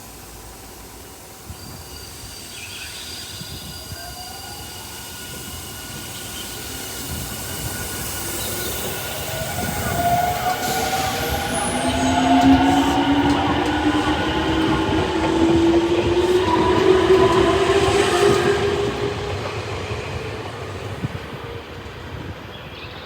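Nankai electric train pulling out and accelerating past, its traction motors whining in several tones that rise steadily in pitch. The sound builds to its loudest over the middle and then fades as the train draws away.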